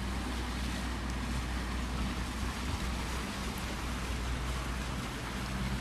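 Small yacht's engine running steadily as it comes alongside a quay: a low hum under a steady hiss.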